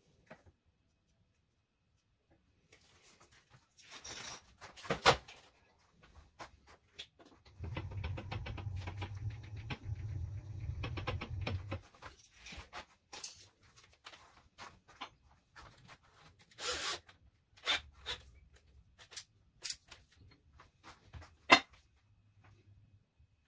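Tools and metal parts being handled while a lathe DRO scale is fitted: scattered knocks, clicks and clatter, with a low buzz for about four seconds in the middle.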